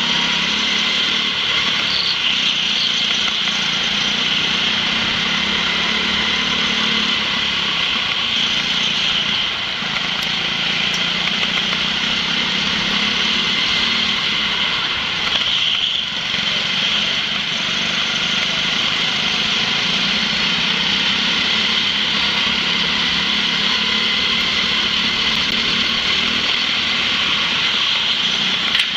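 Small kart engine running at speed, heard from a camera mounted on the kart itself; it dips briefly twice, about a third of the way in and again about halfway through.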